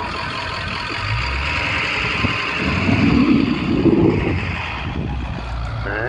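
Pickup truck with a front snowplow blade driving close by on a slushy street. Its engine grows louder from about a second in and is loudest around three to four seconds in, over a steady hiss.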